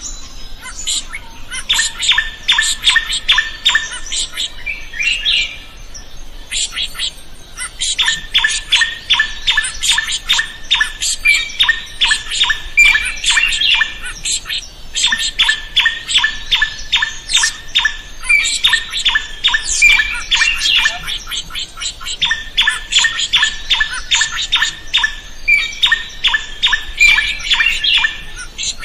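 Drongo calling in long runs of rapid, harsh repeated notes, about five a second, broken by short pauses, with higher, sharper notes mixed in. This is the kind of loud, persistent song used as a master recording to tutor other cage birds.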